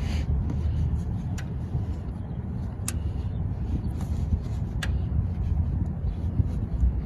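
Three sharp metallic clicks, a second or two apart, from a wrench working at a stuck oil drain bolt, over a steady low rumble.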